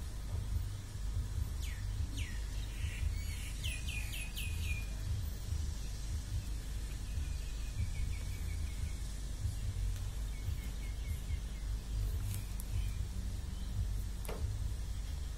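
Small birds chirping: a few quick downward-sweeping calls and a rapid run of about five notes in the first five seconds, then softer high trills. A steady low rumble runs beneath them and is the loudest part.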